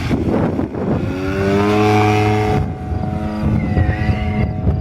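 Model aircraft's 3W-56 boxer-twin gasoline engine running, its pitch rising slightly about a second in and then holding steady.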